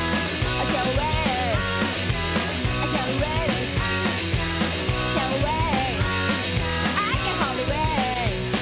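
Punk rock song playing: a full band with a singer, at a steady loud level.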